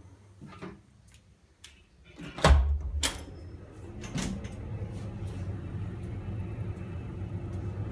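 A small access door is handled and opened: a heavy thud about two and a half seconds in, then a couple of sharper knocks. After that comes a steady low background noise.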